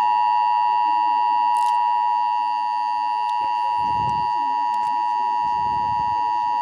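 Emergency Alert System attention signal: a loud, steady two-tone alarm tone, held without a break, that marks the start of an emergency alert.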